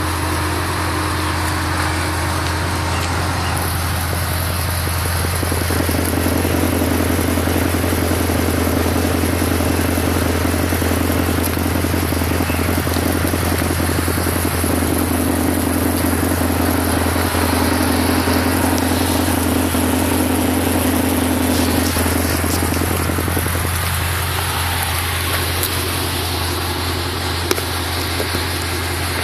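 Chevrolet CR8's 6.2-litre LS3 V8 idling steadily through Kooks headers and a MagnaFlow 3-inch Competition Series exhaust, heard at the tailpipes, with no revving.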